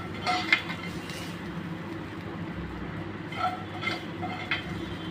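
Steel ladle scraping and clinking against a frying pan as a chopped chicken mixture is stirred, with a few separate metallic scrapes that ring briefly. A steady low hum lies underneath.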